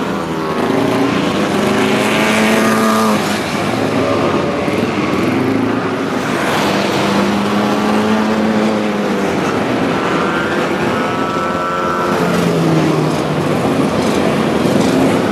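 Vintage racing car engines running at speed as several cars pass one after another, each engine note swelling and bending in pitch as it goes by.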